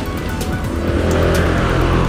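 Background music with sustained low bass notes.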